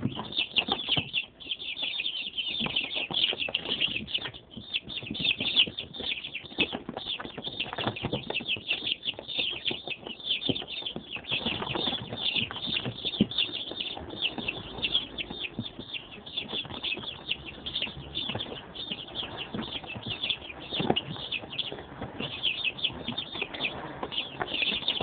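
A box of young chicks peeping nonstop, many high cheeps overlapping, with frequent short knocks and rustles of the chicks moving about on paper and cardboard.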